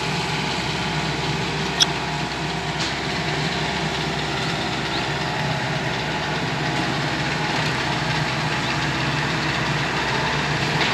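Kubota DC105X combine harvester's diesel engine running steadily as the tracked machine creeps and turns. A single sharp click sounds about two seconds in.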